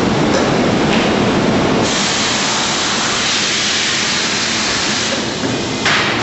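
Factory machinery running with a loud, steady hiss of compressed air that starts about two seconds in, and a short, sharp blast of air near the end.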